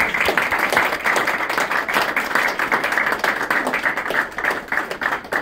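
Audience applauding in a meeting room, with one pair of hands clapping right beside the microphone and standing out loudest above the rest.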